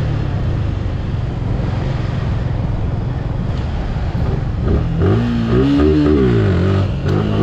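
Suzuki Gixxer motorcycle's single-cylinder engine running under way, with a steady rumble of wind on the microphone. About four and a half seconds in it revs up and drops back down, and it gives another short rev near the end.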